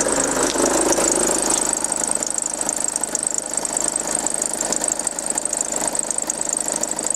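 VW Passat B6 2.0 TDI four-cylinder diesel idling, with a steady high-pitched noise on top of the engine note. The noise comes from the ribbed accessory belt drive; the owner suspects a worn belt or a failing pulley bearing.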